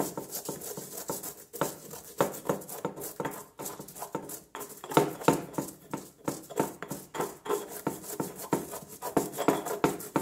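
Stone pestle grinding dried chiltepín chiles, whole peppercorns, serrano chile and salt in a volcanic-stone molcajete: a steady rhythm of gritty rubbing strokes, about two a second.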